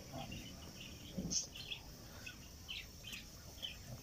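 Small birds chirping over and over in the background, short high chirps coming every few tenths of a second.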